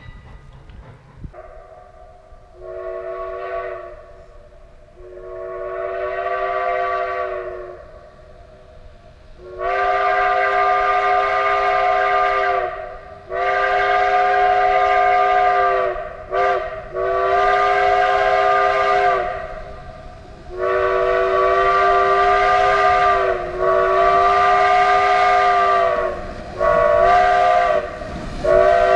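Steam locomotive's chime whistle sounding a chord of several notes in repeated blasts. Two softer, swelling toots come first, then the long, long, short, long grade-crossing signal, which starts again near the end.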